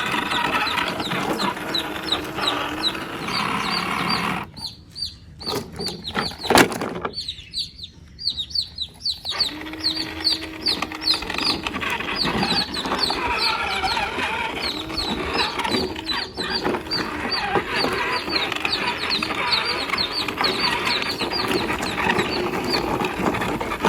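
Birds calling, many short repeated chirps, with a busy background that dips in loudness for a few seconds near the middle.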